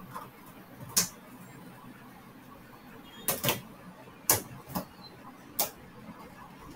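Irregular sharp clicks at a computer, about six in all, with two close together a little past three seconds in.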